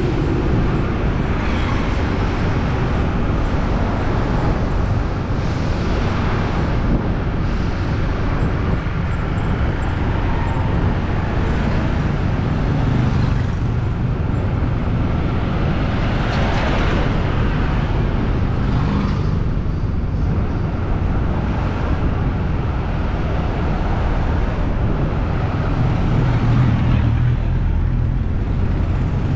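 City road traffic heard from a moving bike: a steady low rumble of engines and road noise, with other vehicles swelling past now and then.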